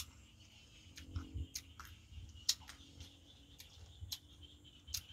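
Mouth sounds of someone eating a sour myrobalan fruit dipped in fermented-fish chili paste: scattered, irregular sharp clicks of chewing and lip-smacking, over a faint steady high hum.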